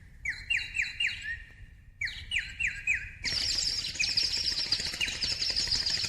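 Bird chirping in quick series of short sweeping chirps, broken by brief pauses. About three seconds in, a denser, higher twittering joins them.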